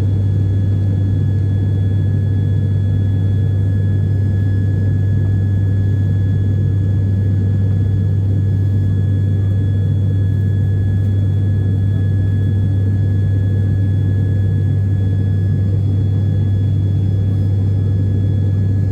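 Steady low propeller drone of an ATR 72-600's Pratt & Whitney PW127M turboprops, with a faint steady high whine over it.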